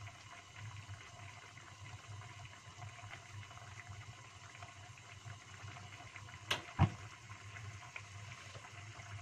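Chicken and broth simmering in a wok over a gas burner, with faint bubbling and a steady low hum. About two-thirds of the way through come two sharp knocks in quick succession.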